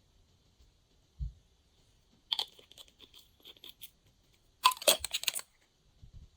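Glossy slime being worked by hand with mixed-in add-ins, giving off crackly clicks and pops. A soft low thump comes about a second in, then scattered clicks, and the loudest burst of crackling comes near the five-second mark.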